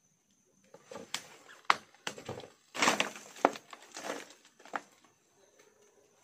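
A few sharp knocks and clacks, about four, with brief scuffing and crunching noises between them.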